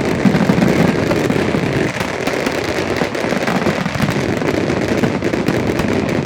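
Fireworks going off in rapid succession: a dense, continuous crackling and popping with no pause.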